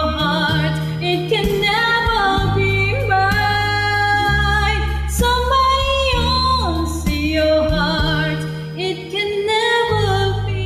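A woman singing over a backing track of sustained chords, with long held notes that waver with vibrato.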